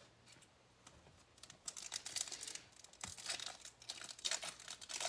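Crinkling and tearing of a baseball card pack's wrapper being torn open by hand, a run of crackles starting about a second and a half in.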